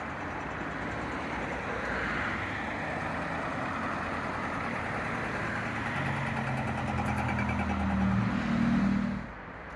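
A road vehicle passing close by: tyre hiss building, then its engine hum growing louder to a peak near the end before dropping away abruptly as it goes past.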